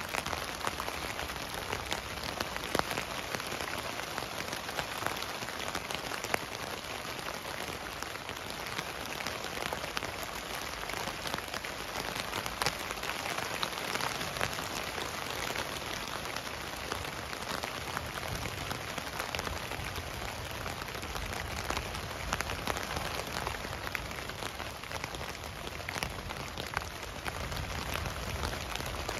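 Rain falling on a tent, heard from inside: a steady hiss of rain with many separate drops tapping on the fabric.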